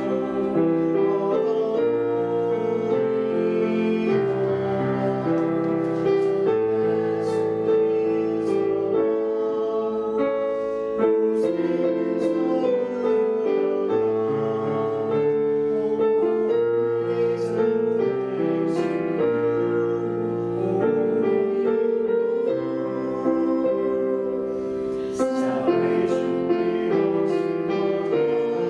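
Keyboard playing slow hymn-like music in held chords that change every second or two.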